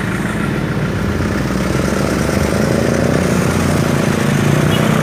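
Motorcycle engine running steadily while riding through street traffic, slowly getting a little louder.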